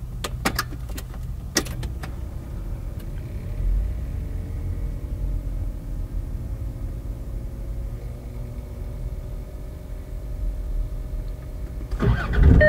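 Land Rover Discovery 2's Td5 inline-five turbo diesel being started: a few sharp clicks in the first couple of seconds, then the engine running at a steady idle.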